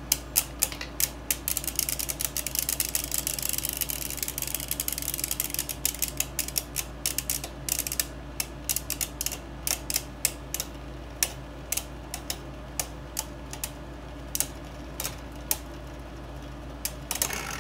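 Two Beyblade Burst tops, Geist Fafnir and Turbo Spryzen, spinning against each other in a plastic stadium: a rapid run of sharp clicks that thins to scattered clicks after about ten seconds as the stamina battle winds down.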